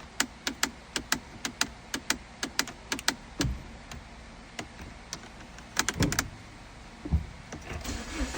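Electrical clicking from a 2012 Mini Cooper's fuse box with the key out: rapid clicks about four a second for about three seconds, then a quick cluster of clicks around six seconds in. It is clicking on its own, which the mechanic takes for a faulty fuse box.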